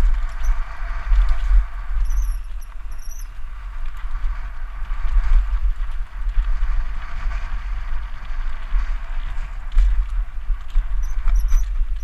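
Wind buffeting a helmet-mounted camera's microphone as a mountain bike descends a dirt trail, with a steady hiss of tyres on dirt and gravel. Brief high squeaks come a couple of seconds in and again near the end.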